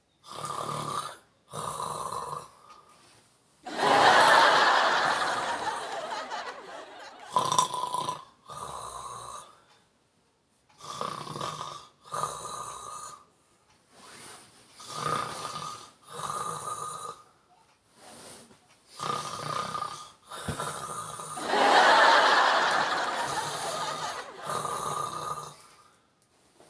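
A man snoring in his sleep: a steady run of short rasping snores, one every second or so. Two much louder, longer snores come about 4 seconds and 22 seconds in.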